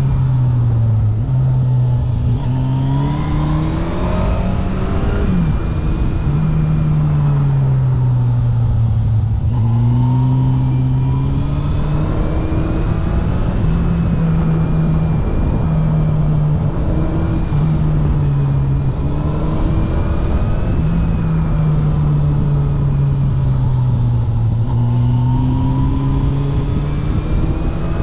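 Yamaha FJR 1300's inline-four engine pulling and easing off repeatedly, its note climbing and dropping back several times, heard onboard over a steady rush of wind and road noise.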